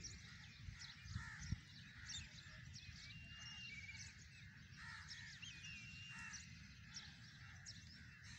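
Faint birds calling: many short chirps scattered throughout and a few held whistled notes, over a steady low background rumble.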